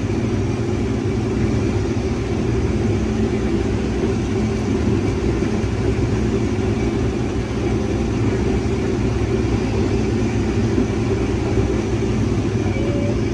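Case IH 2388 combine running steadily under load while shelling corn, a continuous deep machine drone.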